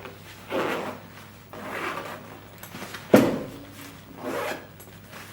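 Backpack's expansion zipper being pulled open around the bag in four rasping strokes, the loudest starting sharply about three seconds in.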